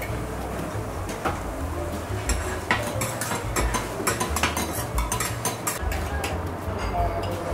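Metal spatulas clinking and scraping on a teppanyaki griddle while food sizzles on the hot plate. The clinks come thick and fast from about two seconds in.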